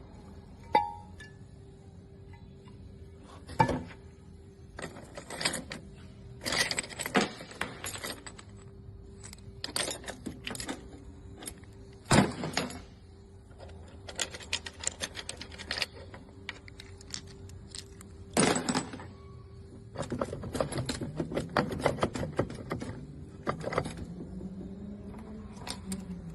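Irregular metallic clinks, taps and knocks of tools and parts being handled in a repair shop, with a few louder strikes, over a faint steady hum.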